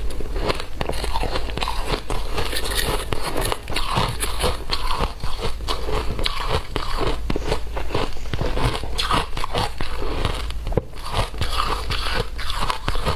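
A person chewing shaved ice, a dense, continuous run of crisp crunches.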